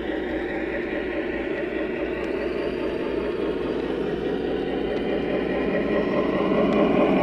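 O gauge model flat car rolling along three-rail track, heard from a camera riding on the car: a steady rolling rumble that grows louder near the end.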